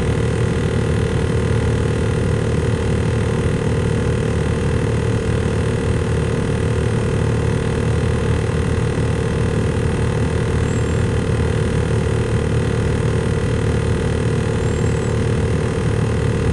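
Freight train's cars rolling past a grade crossing, heard from inside a waiting car: a steady rumble of wheels on rail with light rattling and a constant hum.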